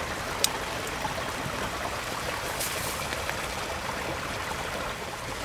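Water boiling in a Trangia titanium pot on its alcohol stove, a steady bubbling hiss, with a light click about half a second in.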